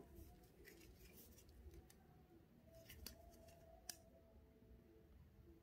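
Faint clicks and taps of a clear plastic ruler being laid against a steel watch case, with the clearest clicks about three and four seconds in, against near silence.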